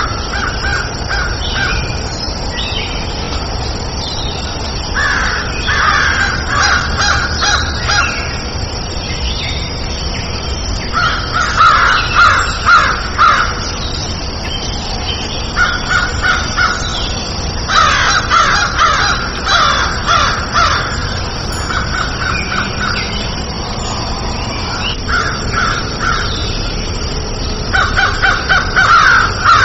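Crow cawing in bouts of several quick caws, a bout every few seconds, over a steady background hiss.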